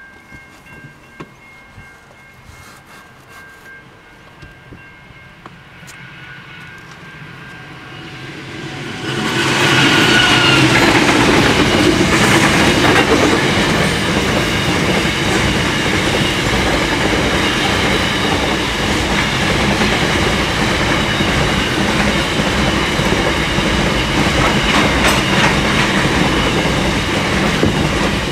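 A diesel-hauled container freight train approaches, faint at first. About nine seconds in its lead locomotives pass close by and the sound rises sharply. After that comes a steady loud run of container wagons rolling past, with wheels clattering on the rails.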